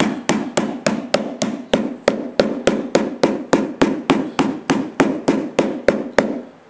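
White rubber mallet beating a carpet edge into a metal nap lock (bend-over bar), steady blows about three a second, closing the bar down to clamp the carpet at the doorway. The blows stop shortly before the end.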